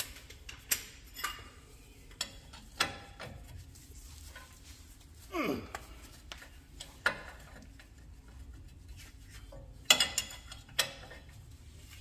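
Hand tools, sockets and wrenches, clinking and knocking as they are handled during work on a truck's front wheel hub: a dozen or so sharp metallic clicks scattered through, the loudest near the end, with a short falling sound about halfway.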